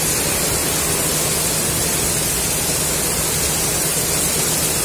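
Heavy downpour pelting the wet pavement: a steady, even hiss of rain with a faint low hum underneath.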